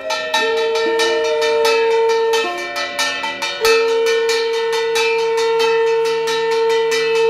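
Conch shell blown in long steady notes, one held about two seconds and then, after a short break, another held about four seconds. Under it a hand bell is rung fast, about four to five strokes a second, the ritual sounds of a Hindu puja.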